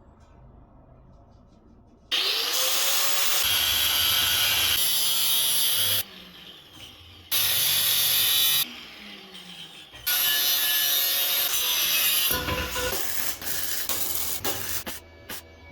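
A power tool running in three loud stretches of a few seconds each, its pitch rising as it spins up at the start of the first, with scattered clicks near the end.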